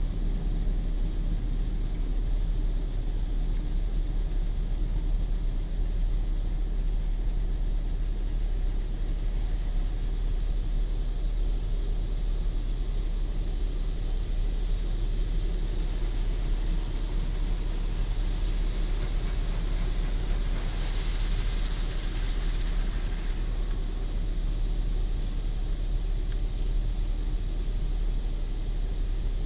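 Automatic car wash heard from inside the car's cabin: a steady low rumble of the wash equipment. About two-thirds of the way through, a hiss of spray swells for a couple of seconds as the windshield is laid over with fresh foam.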